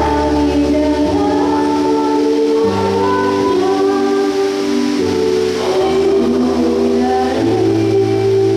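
Backing-track music: sustained keyboard chords over a bass line that steps to a new note every second or two.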